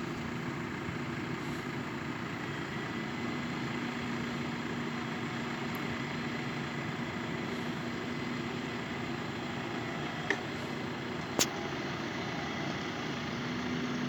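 Tractor engine running steadily with an even low hum. Two short sharp clicks come near the end.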